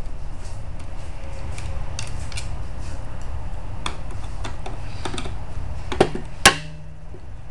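Screwdriver backing screws out of the plastic rear housing of a Fleck 5600 water softener control valve head: scattered small clicks and ticks, with two sharper clicks about six seconds in, over a steady low rumble.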